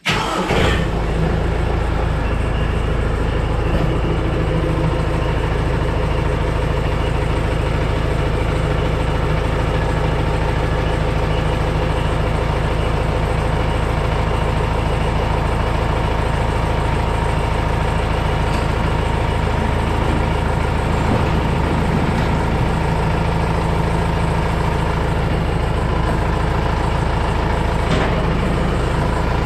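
Kubota M6040 tractor's diesel engine running at a steady speed.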